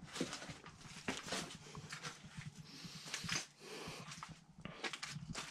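A squirrel making noise in the abandoned house: a run of short, irregular scratchy bursts and clicks.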